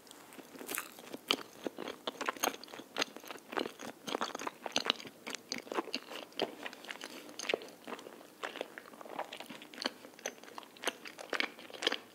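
A person chewing a soft melon-cream rice cake (tteok) close to the microphone: a continuous run of short, irregular mouth clicks and smacks.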